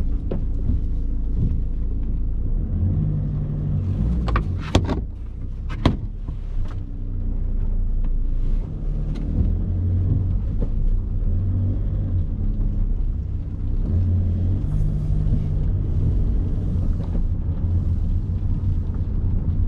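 Car engine and road noise heard inside the cabin as the car drives off, a low hum that shifts in pitch a few times as it picks up speed. Two sharp clicks cut through about five and six seconds in.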